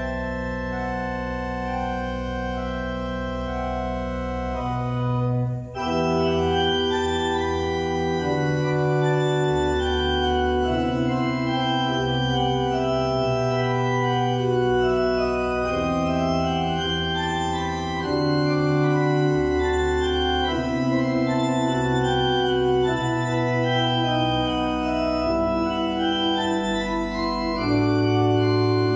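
Organ playing slow, held chords over a bass line that moves every second or two. About six seconds in there is a brief break, after which the registration is fuller and louder.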